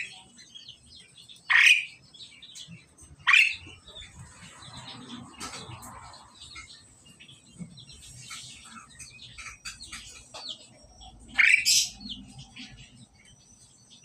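Asian pied starlings calling in a cage: three loud, short calls in the first few seconds and another near the end, with softer chirps in between.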